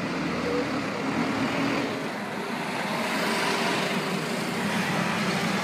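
Lamborghini Aventador SV's V12 engine running as the car crawls along a street, mixed with surrounding traffic noise.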